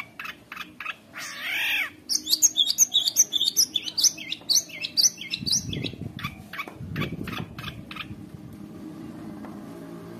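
Long-tailed shrike (cendet) singing: quick chirps, a harsh rasping call about a second in, then a fast run of high, varied notes packed with mimicked calls. The song breaks off about eight seconds in.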